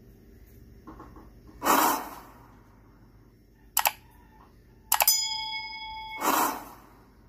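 Subscribe-button animation sound effects: a whoosh, a quick double mouse click, then another click followed by a bell ding that rings for about a second, and a second whoosh near the end.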